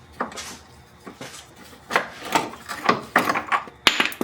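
Hand tools and car parts being handled under the car: a run of short scrapes and knocks, ending in one sharp metallic click near the end.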